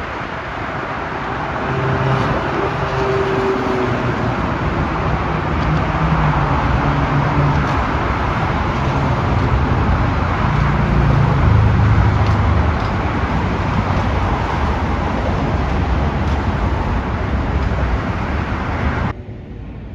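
Road traffic on a multi-lane expressway mixed with a multi-car commuter train running past on the tracks beside it. The sound builds over the first couple of seconds, is loudest a little past the middle, and cuts off suddenly near the end.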